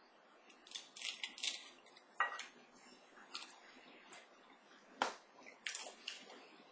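Nachos being bitten and chewed: faint, scattered crunches and crackles, a handful spread over several seconds.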